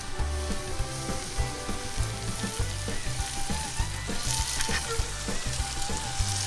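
Grated raw potato and bacon frying in butter in a hot cast-iron skillet, a steady sizzle as fresh pats of butter melt in around the edge of the rösti.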